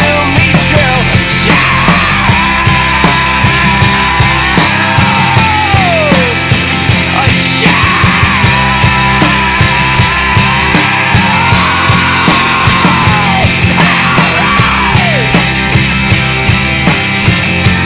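Rock band playing loudly with a steady drumbeat, a long held lead line over it that bends and slides down in pitch, twice.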